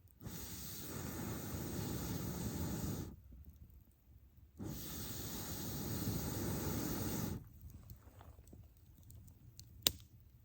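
Two long hissing rushes of air blown into a freshly rebuilt campfire, about three seconds each with a short pause between, followed by one sharp click near the end.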